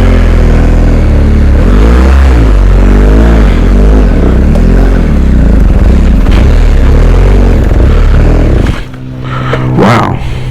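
BMW R1250GS Adventure's boxer-twin engine revving up and down under load on a rutted off-road track, the pitch rising and falling with the throttle. About nine seconds in the engine note drops sharply as the throttle is closed.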